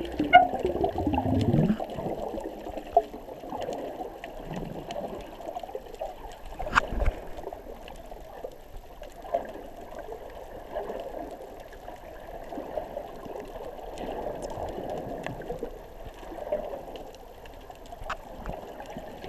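Underwater sound through a GoPro's waterproof housing: muffled moving water with scattered small clicks and crackles, and a few louder knocks. In the first two seconds a sound slides down in pitch.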